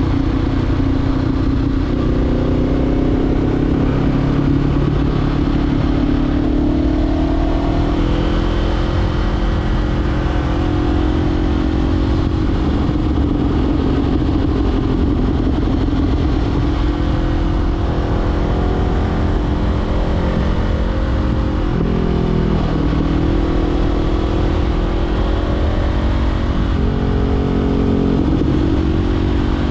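Honda CBR500R parallel-twin engine running through a Leo Vince LV10 slip-on exhaust while riding, its pitch rising and falling with the throttle. The pitch drops sharply and climbs again about two-thirds of the way through.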